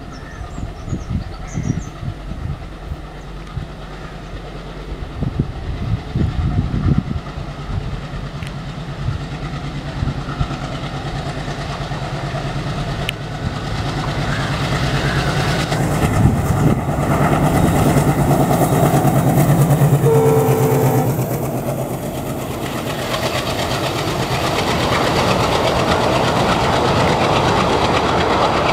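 Indian Railways WDM-3A diesel locomotive hauling a passenger train past, its ALCO engine running with a steady low throb. The throb grows loudest as the locomotive goes by about two-thirds of the way in, with a short horn note. Then the coaches roll past with their wheels clattering over the rail joints.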